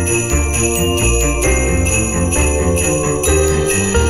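Background Christmas music led by jingle bells shaken on a steady beat over a moving bass line.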